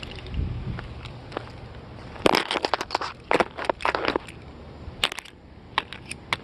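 Black Cat Bull Run 20-shot firework cake going off: a dense run of sharp cracks and pops about two seconds in, then a few scattered cracks near the end.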